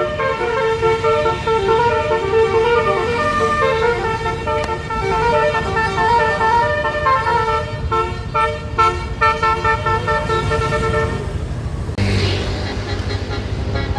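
Bus telolet basuri horn, a multi-tone air horn, playing a melody in stepped notes, with a run of quick repeated notes in the middle. About twelve seconds in the tune stops and the bus's engine rumble is left.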